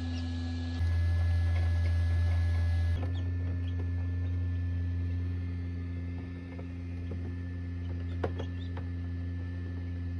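Steady electric hum of an egg incubator's fan and motor, stepping louder about a second in and back down near three seconds. A few faint chick peeps and a single light click about eight seconds in.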